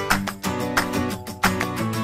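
Background music with a quick, steady rhythm of plucked or strummed strokes.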